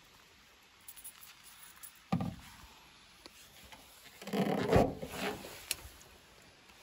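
Fiat Fiorino van's bonnet being opened by hand: a short knock about two seconds in, then a louder clatter and thump of the bonnet and its prop a little before five seconds in, with rubbing handling noise.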